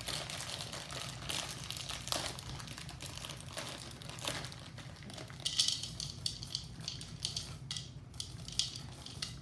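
Plastic bag of chocolate chips crinkling as the chips are poured out into a bowl of thick cookie batter, with many small irregular clicks and rustles.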